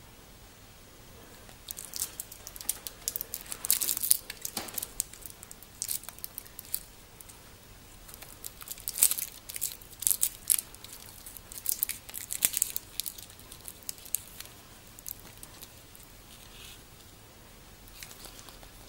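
Hands handling a paper watch hang tag and a stainless steel watch bracelet while working the tag's string loose: irregular crinkling, scraping and light clicking in bursts, dying away near the end.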